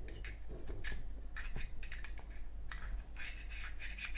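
Light irregular scratching and rubbing with small clicks as rayon balls are pressed into a Zippo lighter's insert by hand.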